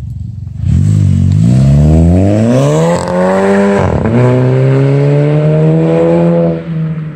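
2017 Volkswagen Jetta's 1.8 TSI turbocharged four-cylinder, muffler deleted, accelerating away: its pitch climbs, drops at a gear change about four seconds in, climbs again more slowly and drops at another shift near the end.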